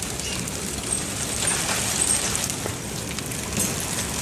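Hailstones falling hard and striking the ground and surrounding surfaces: a steady, dense clatter of many small ice ticks.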